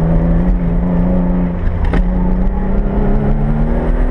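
Car engine under load heard from inside the cabin, holding a steady pitch for about two seconds, then rising steadily as the car accelerates. A single sharp click about two seconds in.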